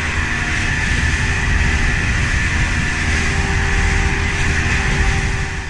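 Outboard-powered boat under way at speed: a Mercury EFI outboard drones steadily beneath a loud, even rush of wind and spray from the hull cutting through the water.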